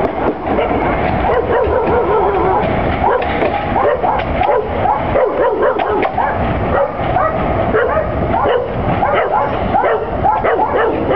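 Dogs barking and yelping over and over in quick, overlapping calls, over the low rolling rumble of a freight train's empty wagons on the rails.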